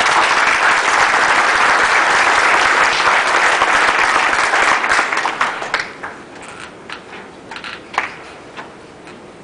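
Audience applauding: loud, dense clapping that thins out after about five seconds into a few scattered claps.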